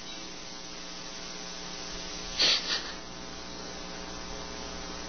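Steady electrical mains hum, with one short, sharp breath about two and a half seconds in.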